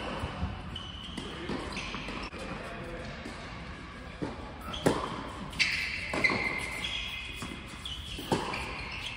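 Tennis ball struck by rackets and bouncing on an indoor hard court: a few sharp pops under a second apart in the second half, with fainter knocks before them. Short high squeaks of shoes on the court come and go.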